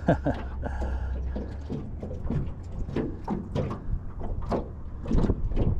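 Wind rumbling on the microphone, heaviest in the first couple of seconds, with scattered light knocks and clatters at irregular intervals.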